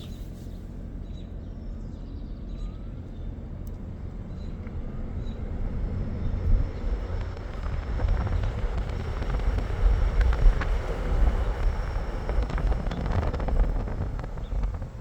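Cabin of a 2025 Toyota Grand Highlander Hybrid accelerating with a window open. Road and wind noise build from about five seconds in, and a faint high-pitched electrical whine runs above it during the acceleration. The owner takes the whine for a fault.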